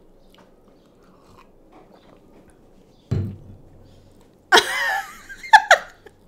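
Faint chewing and eating sounds, then a dull thump about three seconds in, then a loud burst of a woman laughing about a second and a half later.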